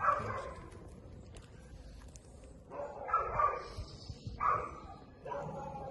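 A dog barking a few times, in short separate barks.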